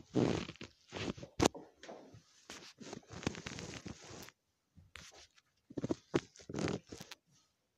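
Close rustling and scraping in irregular bursts, with a sharp click about one and a half seconds in.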